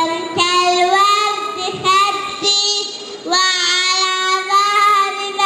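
A young girl singing into a handheld microphone, holding long drawn-out notes, with a short break about three seconds in.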